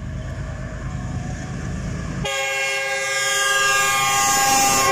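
The Karachi Express's Pakistan Railways diesel locomotive approaches with a low rumble that grows louder. About two seconds in, its horn sounds a steady chord of several tones and holds it.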